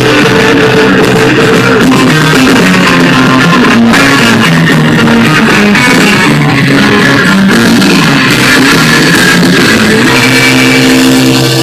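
Background music: a rock song with guitar, played steadily with no singing.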